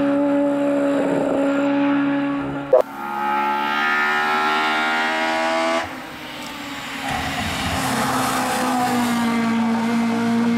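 Naturally aspirated racing engine of an Opel Kadett hillclimb car at high revs. It holds steady, then after a sharp click near three seconds in it revs up in a rising note that drops away abruptly about six seconds in, then climbs again.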